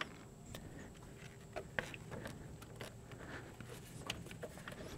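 Faint scattered clicks, taps and rubbing of hands working a new rubber upper radiator hose into place on its fitting, a few slightly louder knocks about a second and a half in.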